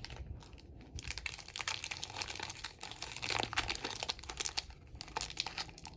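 Wrapper of a 2025 Donruss football hobby pack crinkling and tearing as it is ripped open, a dense run of crackles starting about a second in.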